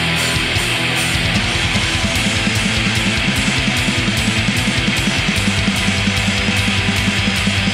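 Black metal music: heavily distorted guitars over fast, evenly repeating kick-drum strokes that settle into a steady rapid beat about a second in.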